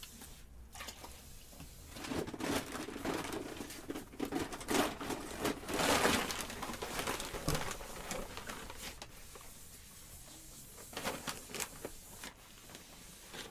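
Paper sack of plaster powder rustling and crinkling as handfuls of plaster are scooped out and dropped into a mixing bowl, in irregular bouts that are loudest about six seconds in and come again near the end.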